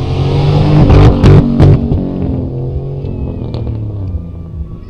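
A Jeep Cherokee's engine revving hard on an off-road track. Several loud, sharp knocks come in quick succession between about one and two seconds in.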